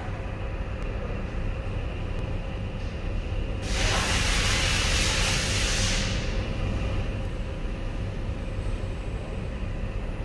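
A burst of compressed-air hiss lasting a little over two seconds, starting about a third of the way in, over a steady low rumble.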